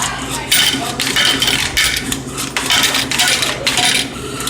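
Drink vending machine refunding coins: coins dropping and clinking into the return in about five short jingling bursts, over the machine's steady hum. The refund is the sign of a failed vend, the delivery door having been held shut.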